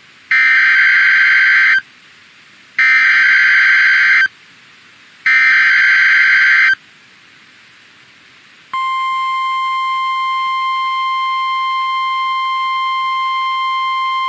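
Emergency Alert System activation on NOAA Weather Radio: three bursts of SAME header data tones, each about a second and a half long with a second's gap between them, then the steady 1050 Hz weather radio alert tone, which starts about nine seconds in and carries on. This alert sequence announces a severe thunderstorm warning.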